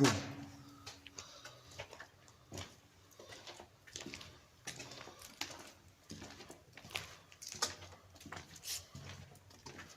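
Footsteps crunching on a gritty, debris-strewn tunnel floor, about one step a second.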